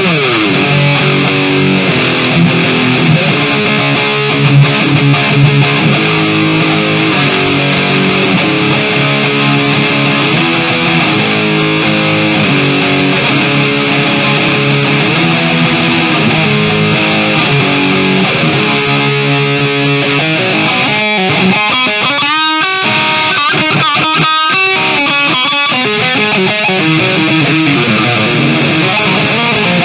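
Kramer Baretta Special electric guitar played through an amp on its highest-gain distortion setting, at about half volume: heavily distorted chord riffing. About twenty seconds in, it turns to choppier, stop-start riffs.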